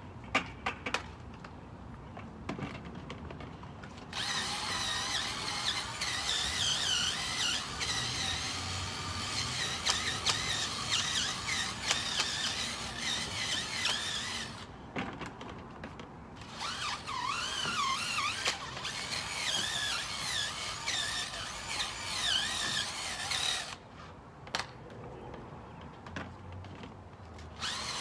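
A brush scrubbing a car tyre and wheel rim, with high squeaking that wavers in pitch. It comes in two long stretches: the first starts abruptly about four seconds in, and after a short pause the second stops abruptly near the end.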